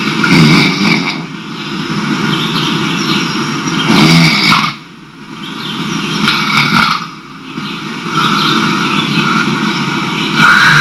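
A man snoring loudly, in long swelling breaths with two brief lulls in the middle.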